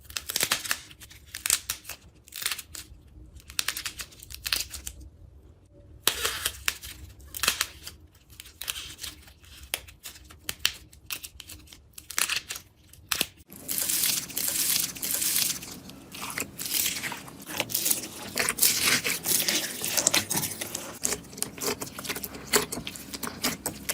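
Slime being squeezed and pressed by hand, giving sharp crackles and pops: scattered at first, then a dense, continuous crackling from about halfway through.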